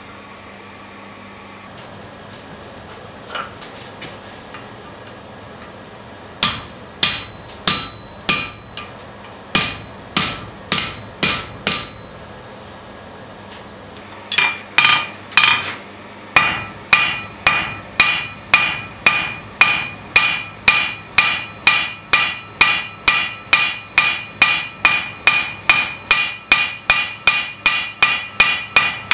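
Blacksmith's hammer striking hot steel on an anvil, each blow with a metallic ring. After a quiet start, a handful of blows about a second apart, a short pause, then a steady run of about two blows a second.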